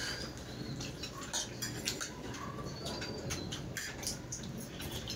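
Close-up eating sounds of two people eating pasta with forks: chewing, lip smacks and slurps, heard as many short, sharp clicks.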